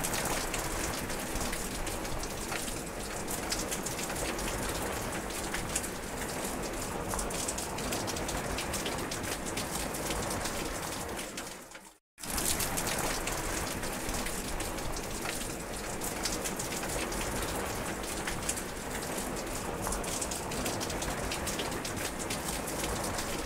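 Steady heavy rain falling on grass and foliage, a dense hiss full of individual drop ticks. About halfway through, the sound fades out, goes silent for a moment and comes straight back.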